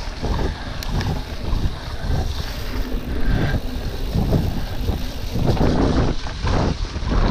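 Specialized Epic Comp full-suspension mountain bike ridden fast over a dirt forest track: tyre roar with irregular rattles and knocks from bumps, over wind buffeting the camera microphone.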